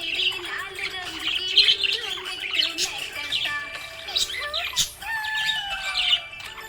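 Budgies chirping and chattering in a dense stream of short chirps, with a longer, slowly falling note about five seconds in.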